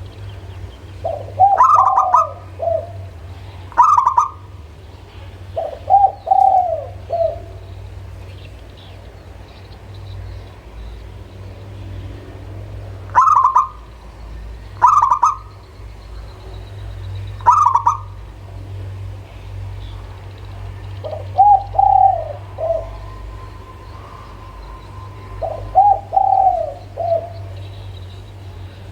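Zebra dove (local perkutut) cooing. Short trilled phrases of several notes come about four times, with sharp single higher notes between them and pauses in between. A steady low hum sits underneath.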